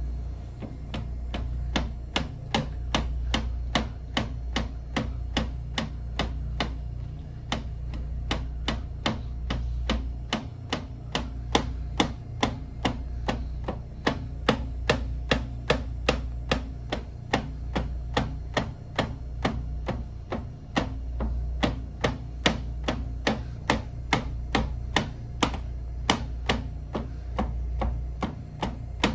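Instep kicks (haisoku geri) striking a wrapped post over and over, about two sharp smacks a second in an even rhythm, with a steady low hum underneath.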